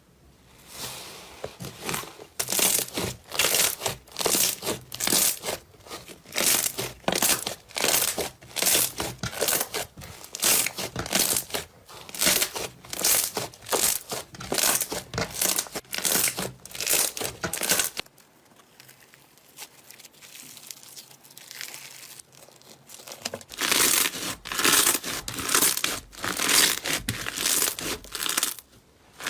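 Slime being squeezed and pressed by hand, a crinkling, crackling squish about twice a second. There is a quieter stretch of about five seconds past the middle, then the rhythmic squishing resumes.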